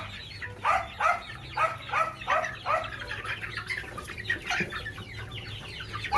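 Chicken giving a run of quick clucking calls, about three a second, thinning out midway and picking up again at the end: the alarm cackle of a chicken being chased to be caught.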